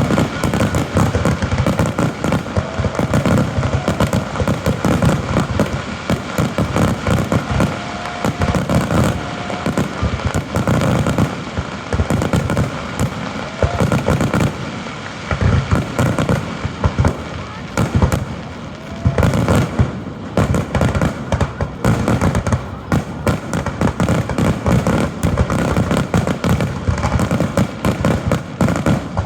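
Fireworks finale: a dense, nearly continuous barrage of overlapping shell bursts and crackling, with only brief lulls.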